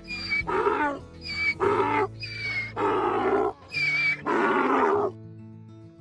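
Donkey braying: a long run of alternating hee-haw calls that stops about five seconds in, over steady background music.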